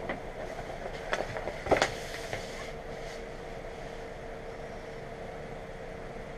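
A sheet of vinyl graphic with transfer tape being handled and laid onto a plywood table: a few short rustles and taps in the first two and a half seconds, the loudest about halfway through that stretch. A steady room hum with a faint steady tone runs underneath.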